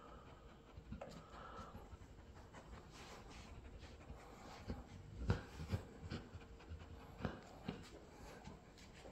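German shepherd sniffing and panting faintly with its nose to a rug as it searches for a scent, with a few soft knocks and ticks, the loudest about five seconds in.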